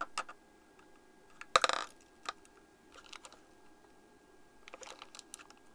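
Scattered light clicks and clatter of small capacitors and a parts box being handled on a workbench, with one louder short rattle about a second and a half in.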